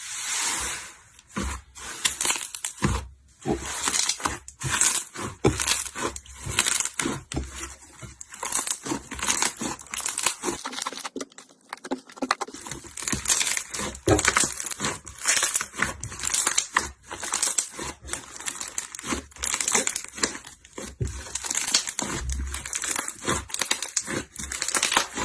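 Slime being squeezed, pressed and pulled apart by hand, giving a dense run of irregular crackles and small sticky pops.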